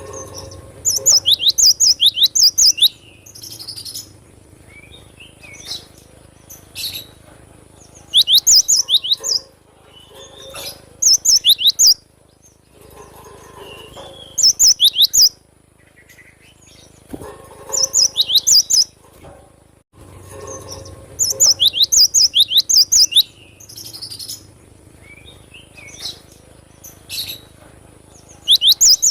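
Cinereous tit (gelatik batu) singing: bursts of rapid, high repeated notes, about four a second, each burst lasting one to two seconds and repeating every few seconds, with softer calls between.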